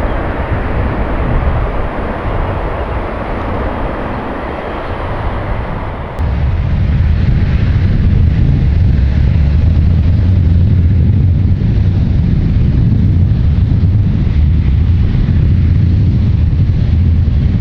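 Jet airliner engine noise at an airport: a loud, rushing roar, which changes abruptly about six seconds in to a louder, deep rumble that holds steady.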